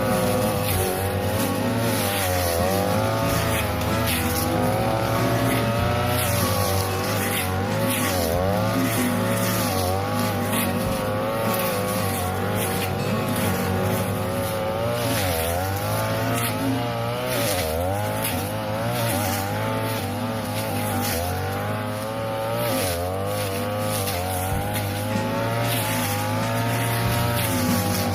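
A 42cc two-stroke brush cutter running at high revs with a metal blade. Its pitch dips again and again as the blade bites into thick, flattened cogon grass, then recovers.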